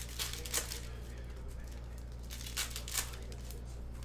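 Trading-card pack wrappers crinkling and tearing in a few short bursts as packs are opened and cards handled, over a steady low hum.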